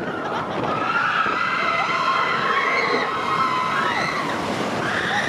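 Several riders screaming together on a roller coaster: long, overlapping high cries that slide up and down in pitch.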